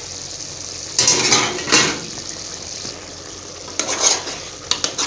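A spoon scraping and clinking against a pan while a tomato, pepper, onion and egg sauce is stirred, over a steady frying sizzle. There are a few scrapes about a second in and more near the end.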